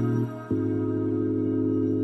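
Background music of slow, sustained chords with no percussion. The chord changes abruptly about half a second in, just after a brief dip in loudness.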